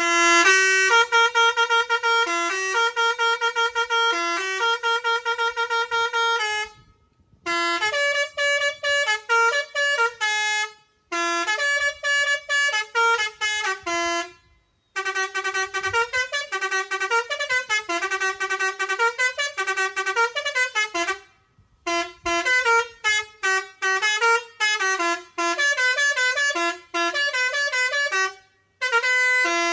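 Musical air horn with 19 selectable melodies playing several tunes in turn, each a run of changing notes a few seconds long, with brief pauses between them.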